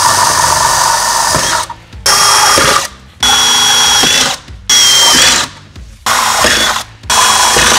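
Cordless drill with a 3/16-inch bit boring six holes through a van door's sheet metal: six short, loud bursts of drilling, each stopping abruptly, some with a steady high whine.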